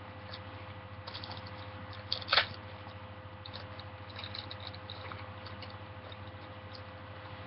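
Foil booster-pack wrapper being crinkled and torn open by hand, with small scattered crackles and one louder crackle about two seconds in, over a steady low electrical hum.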